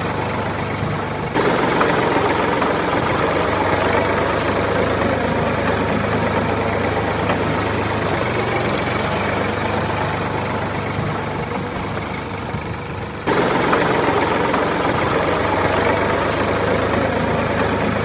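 Small engine running steadily with a low, even hum. Its loudness jumps up suddenly about a second and a half in and again near the end.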